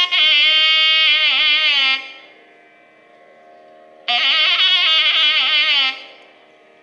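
Nadaswaram playing an unmetered alapana in raga Dharmavathi. Long, ornamented phrases slide and bend between notes: one ends about two seconds in, and another runs from about four to six seconds in. A steady drone keeps sounding underneath through the pauses.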